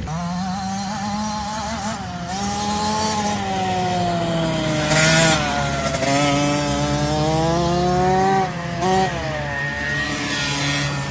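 Mini motocross bike engine revving up and down as it is ridden, its pitch rising and falling, loudest about five seconds in. Near the end it briefly drops off and picks up again as the throttle is closed and reopened.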